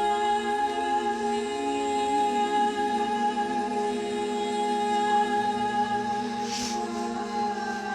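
Worship song sung a cappella by one woman's multitracked voice: layered humming and sung tones held as long sustained chords, with no instruments.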